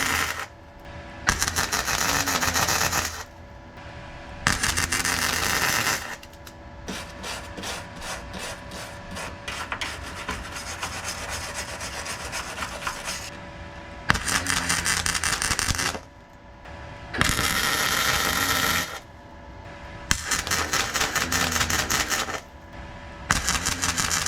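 Electric welder laying short runs on thin car-body sheet steel of an Austin Allegro sill: harsh crackling arc bursts of a second or two each, with brief pauses between them. The welder is running hot and spitting even on its minimum setting. A quieter stretch of fast ticking comes in the middle.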